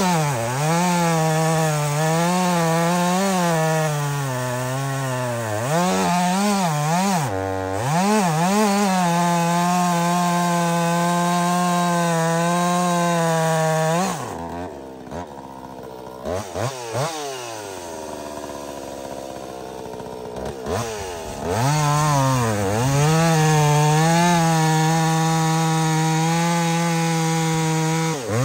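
Woods-ported Jonsered 2156 two-stroke chainsaw cutting through cherry wood at high revs, its pitch wavering as it loads in the cut. It dips briefly about seven seconds in, falls back to a lower, quieter run for several seconds around the middle, then revs back up to full speed.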